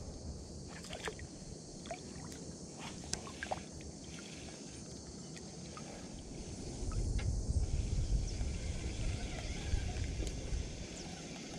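Water sounds around a kayak, with light trickling and scattered small clicks. A low rumble comes in about seven seconds in and fades again near the end.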